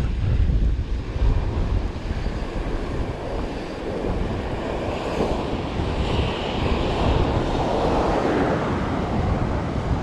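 Ocean surf breaking and washing up the sand, with wind buffeting the microphone in a steady low rumble. The wash swells louder about two-thirds of the way through.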